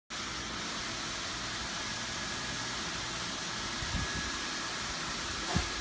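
Blower fan of a Gemmy Snoopy Sno-Machine animated inflatable running with a steady airy hiss and a faint high whine. Two short low thumps come about four and five and a half seconds in.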